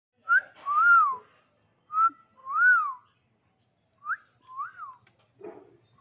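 Alexandrine parakeet whistling the same two-part phrase three times: a short rising note, then a longer whistle that rises and falls.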